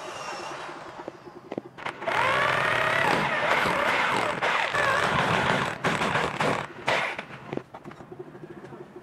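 Electric drill boring a hole into hardwood with a twist bit. It starts about two seconds in, its whine wavering in pitch as the bit cuts, and stops after about four seconds.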